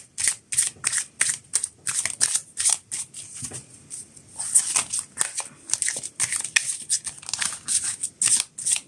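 A deck of tarot cards shuffled by hand, overhand: quick repeated slaps and flicks of cards against each other, about three or four a second, easing briefly about four seconds in as the deck is squared.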